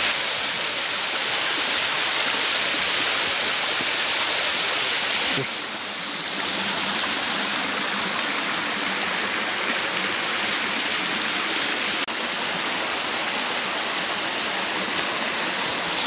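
Forest stream rushing over rock ledges in a small cascade: a steady rush of falling water, with a brief dip about five seconds in and a single click near twelve seconds.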